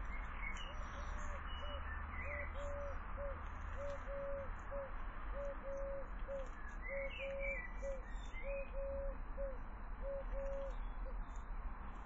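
A dove cooing: the same three-note phrase, a short note, a long one and a short one, repeated about every second and a half, seven times in a row, with small birds chirping faintly now and then higher up.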